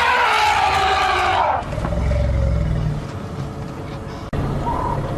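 African elephant trumpeting: a loud, harsh blast that rises and falls and cuts off about a second and a half in, the call of an upset elephant. A low rumble follows, and near the end a bird gives short, repeated whistled notes.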